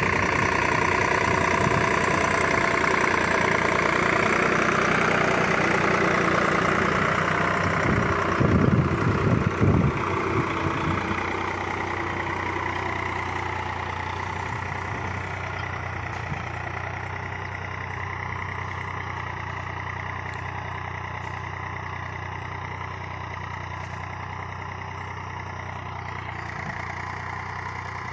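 Eicher 485 tractor's three-cylinder diesel engine running steadily under load as it pulls a tine cultivator through the soil. A few louder low thumps come around nine to ten seconds in, and the engine grows slightly fainter over the second half.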